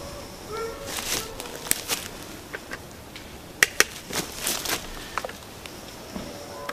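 Handling noises: scattered rustles and sharp clicks as hearing protection is fitted and a chainsaw is lifted from the leaf litter, with two sharp clicks close together a little past halfway. The saw is not running.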